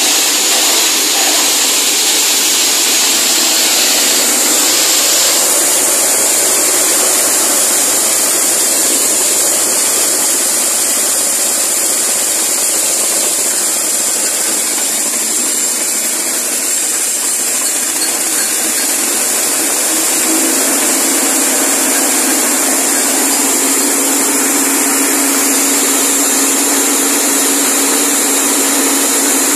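Small single-cylinder petrol engine driving a blade-rotor forage chopper, running steadily under load while cassava stalks are fed in and shredded through its screen. The chopping noise is continuous, and a steady low hum joins in about two-thirds of the way through.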